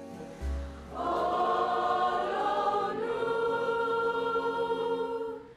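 A girls' choir singing long held chords, coming in about a second in and moving to a new chord about two seconds later, then stopping abruptly.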